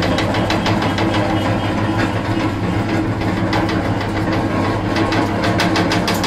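Areca nut (supari) cutting machine running: a steady motor hum under a rapid, even clatter from the crank-driven cutter, about six strokes a second.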